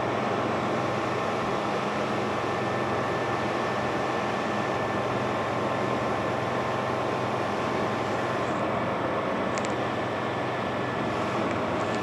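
Steady drone of a light sport airplane's engine and propeller with airflow noise, heard inside the cabin during the climb after takeoff.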